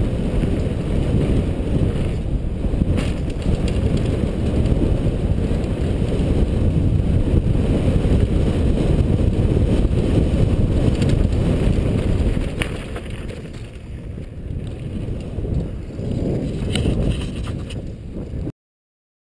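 Wind buffeting the microphone of a helmet-mounted camera, with the tyre roar and rattle of a Trek Session downhill mountain bike running fast down a dirt trail and a few sharp knocks from the terrain. It gets quieter after about twelve seconds as the bike slows onto grass, then cuts off abruptly just before the end.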